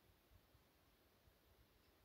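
Near silence: faint outdoor background with soft low bumps and one tiny short high sound near the end.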